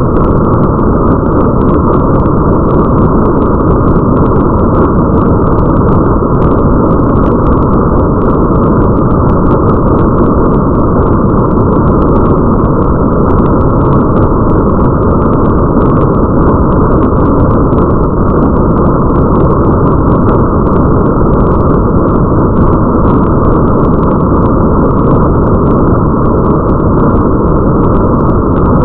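Steady, muffled rain ambience: an even, deep wash of rain noise with the treble cut away, and faint light ticks of drops above it.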